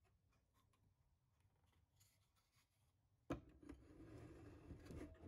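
Near silence with faint small clicks, then about three seconds in a sudden knock followed by scraping and rubbing as the clock mechanism is slid down into its wooden case.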